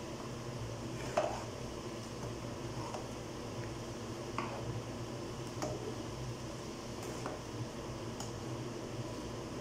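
Metal ladle stirring mung bean soup in a metal pot, clinking against the pot a handful of times, the loudest knock about a second in, over a steady low hum.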